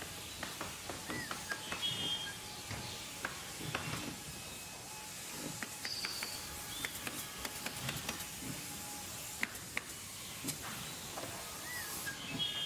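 Outdoor ambience: a steady hiss with scattered small clicks and a few short, high chirps.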